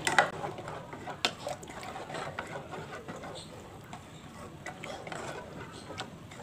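Plastic spatula stirring a liquid agar-agar pudding mixture in an aluminium saucepan, scraping around the pan, with a few sharp knocks of the spatula against the pan.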